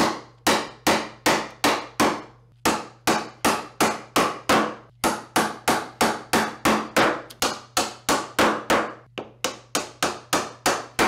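Wooden-handled chisel struck on its handle in a quick steady series, about three sharp knocks a second with a few short pauses, chopping down across the end grain of Southern Yellow Pine that has been softened with an alcohol-and-water spray.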